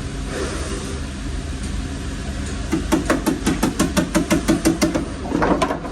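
Fast, even tapping of a hand panel-beating tool on the car's sheet-metal quarter panel, about six strikes a second for roughly two seconds starting near the middle, over a steady low shop hum. The tapping is typical of knocking down high spots to draw a body line back into shape.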